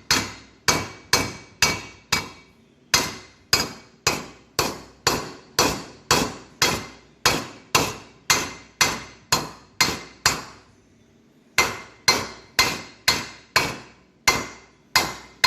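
Hammer striking a piece of aluminium sheet in a steady run of blows, about two to three a second, each with a short metallic ring, to tap the patch plate up flush against the swing arm's inner material. The blows pause for about a second near ten seconds in, then carry on.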